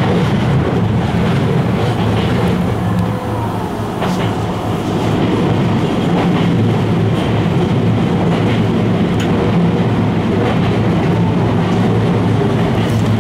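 Tokyu Toyoko Line electric commuter train running, heard from inside the rear cab: a steady rumble and hum with scattered clicks from the wheels on the track.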